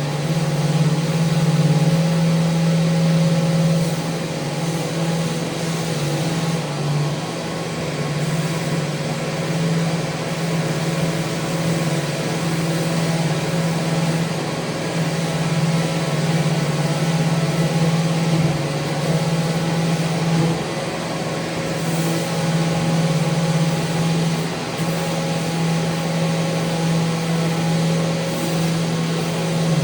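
Electric power sander running steadily against mounted handrails, a strong hum over a gritty hiss. Its pitch shifts slightly now and then.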